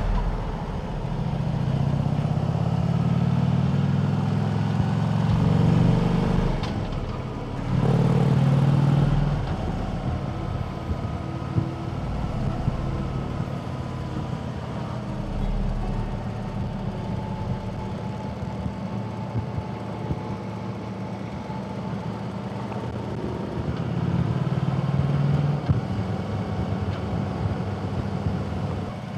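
Harley-Davidson touring motorcycle's V-twin engine running on the move, heard from the rider's seat, swelling under throttle a few times and easing off between, over steady wind and road noise.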